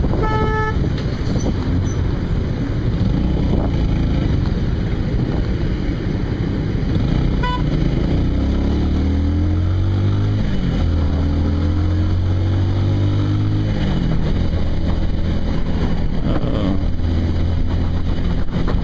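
Motorcycle engine in city traffic, with a short horn honk right at the start. About eight seconds in the engine revs up as the bike pulls away, drops briefly at a gear change, revs up again, then settles to a steadier run.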